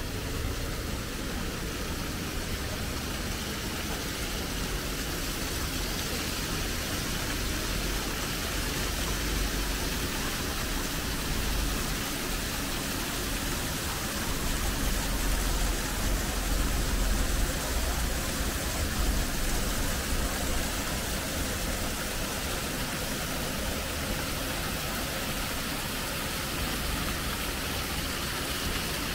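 Steady rushing of hot-spring water flowing through the Yubatake's wooden channels. A low rumble swells in the middle and then eases off.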